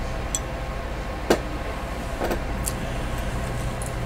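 A steady low hum with a few light clicks and knocks, the sharpest about a second in: handling noise as a metal medallion on a ribbon is moved and put on.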